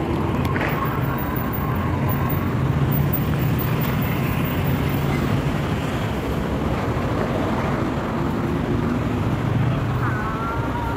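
Steady city street traffic noise: the low hum of car engines and tyres on the road.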